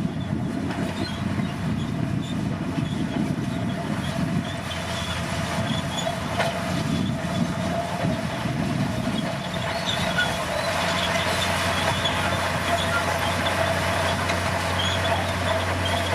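Komatsu crawler bulldozer working: its diesel engine runs steadily under a constant high whine, with a rumble that is heavier in the first half and brighter, louder high sounds later.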